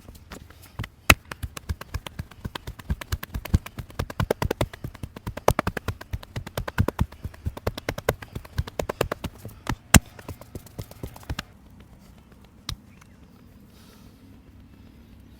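Rapid hand strikes of a percussive massage, palms slapping and tapping on a person's body several times a second. The strikes stop about eleven seconds in, with one more a little later.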